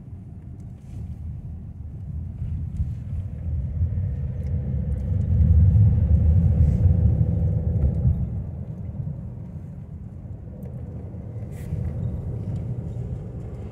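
Car's engine and road noise heard inside the moving cabin: a steady low rumble that swells about a third of the way in, holds for a few seconds, then eases off.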